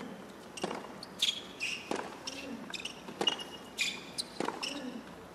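Tennis rally on a hard court: four racket strikes on the ball, about one every second and a quarter, with sneakers squeaking on the court between shots.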